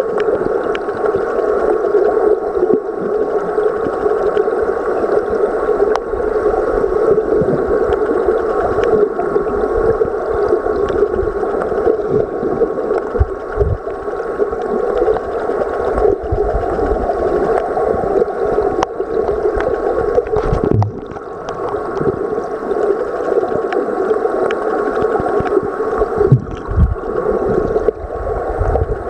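Steady, muffled rush of moving river water heard underwater, with a few low thumps.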